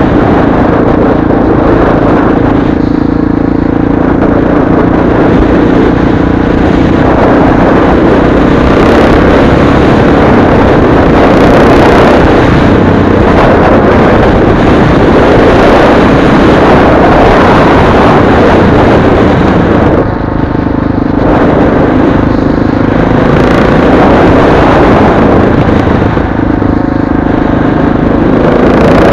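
Motorcycle riding at road speed: a loud, steady rush of wind over the microphone, with the engine's drone coming through more clearly a few seconds in, around twenty seconds and near the end.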